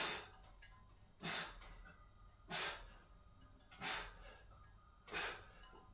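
A man breathing out hard in short, forceful puffs, five of them about one every second and a quarter, one with each repetition of dips done with 20 kg added on a dip belt.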